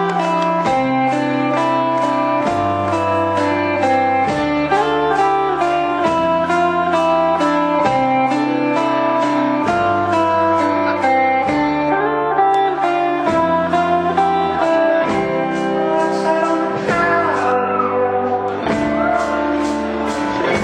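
Rock band playing live: distorted electric guitars over a bass line that steps through held notes and a steady drum beat.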